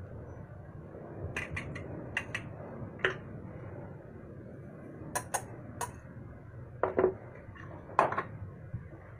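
Kitchen utensils clinking against a mixing bowl: about a dozen short, irregular clinks, the loudest ones near the end. This fits the dry ingredients being combined in the bowl.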